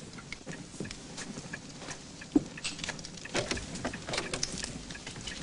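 Footsteps thudding on a floor among scattered light crackles and ticks.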